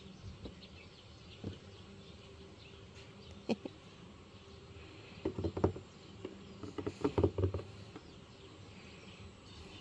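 Soft scratchy rustling and light clicks of a hand stroking and handling a lying cat's fur and paws, bunched in two short spells a little past the middle, over a low background hiss.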